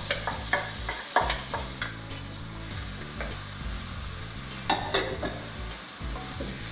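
Diced onion and cubes of veal sizzling in hot oil in a nonstick frying pan. Sharp clatters and knocks sound as the food is tipped in during the first couple of seconds and again near five seconds, when the wooden spatula strikes the pan.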